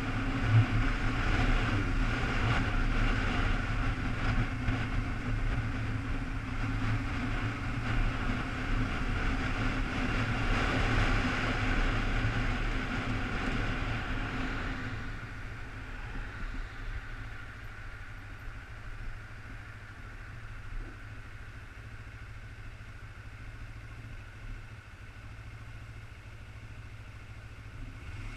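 Sport motorcycle riding in traffic: engine running with a loud rush of wind for about half the time, then the wind fades as the bike slows and the engine settles to a steady idle behind stopped traffic.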